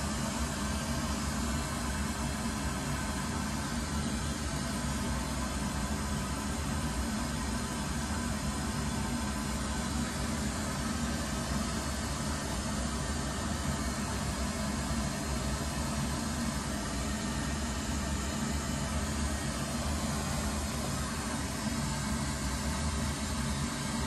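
Pink noise played steadily through studio loudspeakers as a full-range test signal for measuring the room's frequency response, a constant hiss with its energy strongest in the bass.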